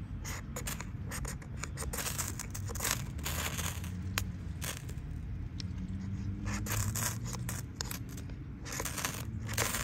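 Ferrocerium rod struck again and again with a steel scraper: repeated short rasping scrapes, some in quick runs, throwing sparks onto fatwood shavings to light them.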